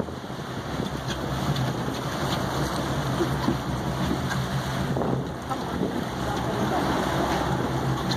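A boat's engine running with a steady low hum, under wind on the microphone and the wash of choppy sea.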